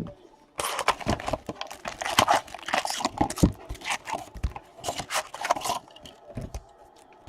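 Trading-card packaging being torn open, with plastic wrapping crinkling and crackling in a dense run from about half a second in until near six seconds. Two low knocks follow near the end.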